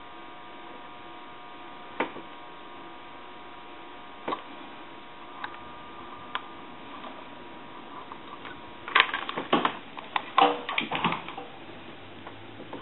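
Steady electrical hum with a few sharp, isolated clicks, then a quick run of clattering clicks and taps from about nine seconds in, as tools and small telephone parts are handled at the repair bench during soldering.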